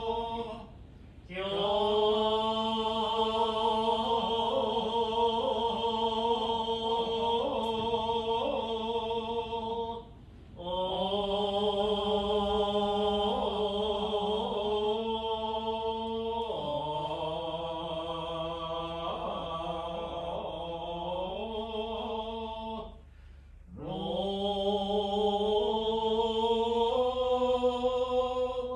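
Shingon Buddhist liturgical chanting by the officiating priest in long, drawn-out held notes, broken by breath pauses about a second in, around ten seconds in and near 23 seconds in; the pitch steps down lower about 16 seconds in.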